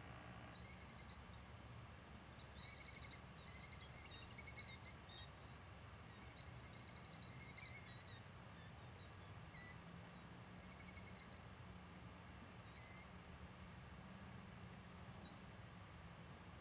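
Faint bird calls: short, high chattering and warbling phrases that come and go, thickest in the first half and thinning out towards the end, over a steady low background rumble.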